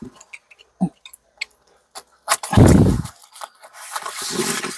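Newspaper wrapping being slit with a small knife and pulled open, rustling and crinkling, with a few small clicks at first and a loud crumple of paper about halfway through.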